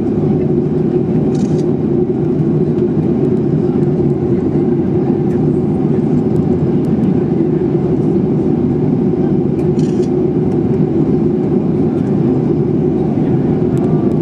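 Steady cabin drone of a Boeing 737-800 in flight, the noise of its CFM56-7B turbofan engines and the airflow over the fuselage heard inside the passenger cabin, with two faint brief ticks.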